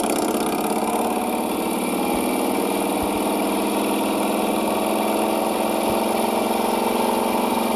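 Custom Harley-Davidson V-twin motorcycle engine, a 1966 Shovelhead top end on a 1952 Panhead lower end, running steadily while the rigid-frame chopper is ridden.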